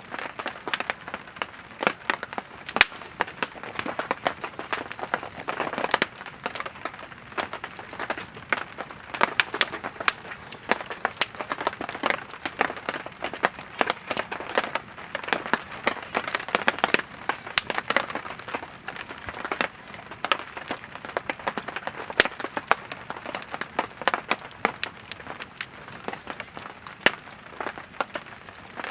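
Firewood burning in a campfire, crackling steadily with many irregular sharp snaps and pops.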